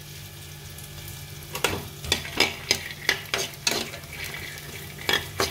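A metal spatula stirring peanuts roasting in a little ghee in a steel frying pan. After a faint sizzle, a quick run of scraping clicks against the pan starts about a second and a half in, with two more near the end.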